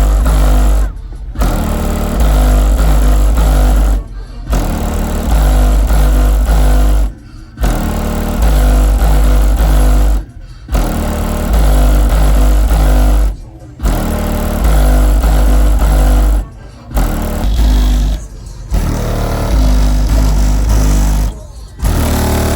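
Bass-heavy rap music played very loud through a van's DD Audio subwoofer system, deep bass notes held for long stretches. The music drops out briefly about every three seconds.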